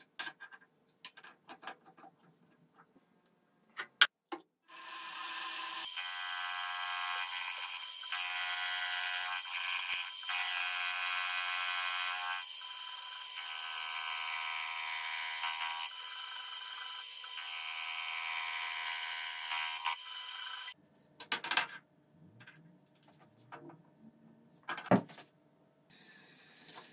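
Clicks and knocks of a steel machine vise being handled. Then a milling machine's spindle runs for about sixteen seconds, cutting a small metal part clamped in the vise, with the sound dipping briefly a few times. It stops suddenly and is followed by scattered knocks and clicks of tools on the machine table.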